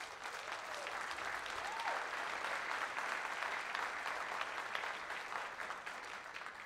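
Large seated audience applauding, many hands clapping together; the applause dies away near the end.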